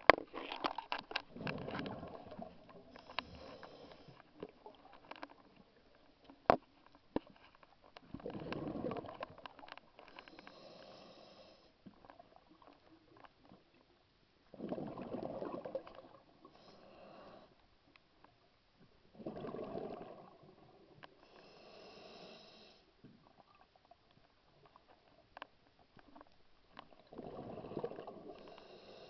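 A scuba diver breathing through a regulator: a loud burst of exhaled bubbles on each breath out and a quieter hiss from the regulator on each breath in, repeating in a slow, uneven rhythm. There is one sharp click about six seconds in.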